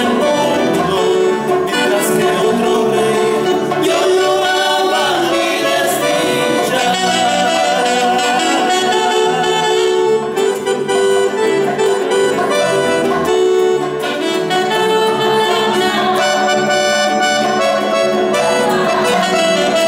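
Live ensemble playing a tunantada from Junín: acoustic guitars, bass guitar and drum kit under a melody of long held notes.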